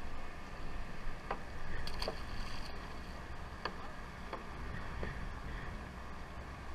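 Steady low rumble of a fishing boat's engine and water along the hull, with a few light clicks and taps about a second apart.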